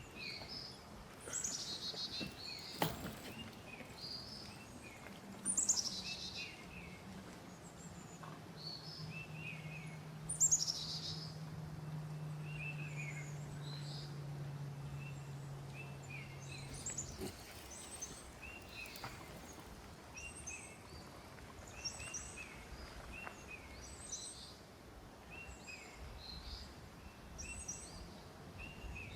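Wild birds chirping and calling repeatedly in short high notes. A faint low hum slowly drops in pitch from about five seconds in and stops abruptly around seventeen seconds, and there is a single sharp click near three seconds.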